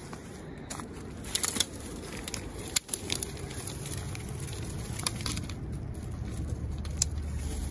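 Dry weed stalks and a plastic lure package crackling and rustling in short scattered bursts as a hand pushes the pack into a drainage pipe, over a low steady rumble.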